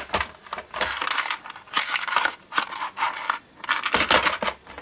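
Plastic DVD cases being handled and opened: irregular clicks and clacks of the cases with packaging rustling in between.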